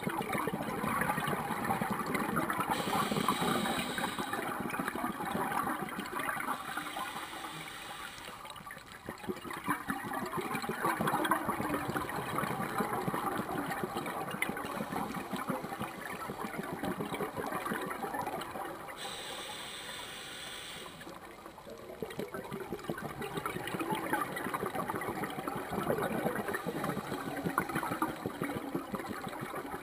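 A scuba diver breathing through a regulator, heard underwater: long stretches of gurgling exhaled bubbles, broken twice by short pauses, with the hiss of an inhalation in the second pause.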